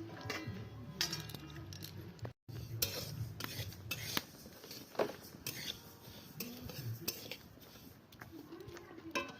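Metal spatula scraping and clinking irregularly against a metal kadai, stirring moong dal as it dry-roasts.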